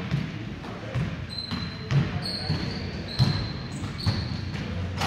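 A basketball bouncing on a hardwood gym floor during play, irregular knocks with two louder ones around two and three seconds in, mixed with short high squeaks of sneakers on the court.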